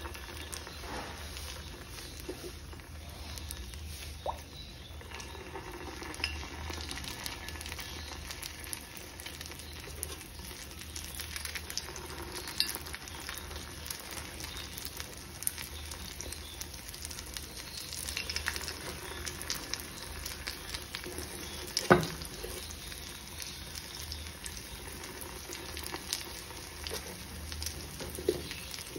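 Spoonfuls of batter sizzling and crackling in hot oil in the cups of a paniyaram pan, with a few sharp clicks of a spoon against the pan, the loudest about three-quarters of the way through.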